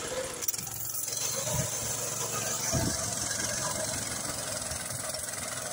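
Walk-behind tractor engine on a homemade trike, idling steadily.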